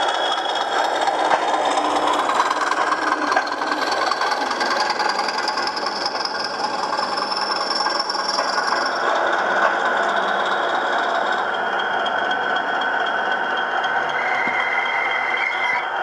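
Recorded diesel engine sound from O gauge model locomotives' Loksound DCC sound decoders, running steadily, with the rattle of model wheels on the track as a class 20 model passes close by. A higher steady tone comes in near the end.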